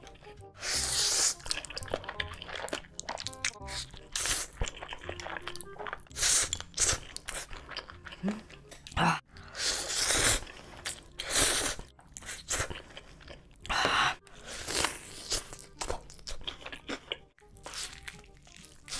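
Close-miked eating: loud slurps of sauced noodles and crunchy bites into sauce-coated fried chicken, with chewing between them. A string of separate bursts, each up to about a second long, over faint background music.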